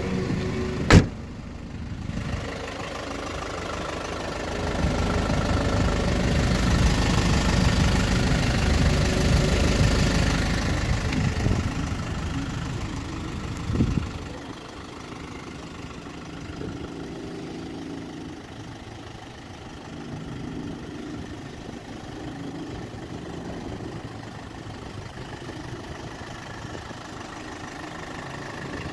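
2.8-litre Isuzu 4JB1-T turbo-diesel idling with a steady diesel clatter. A door slams shut about a second in, and the running sound is louder for several seconds after that before settling back.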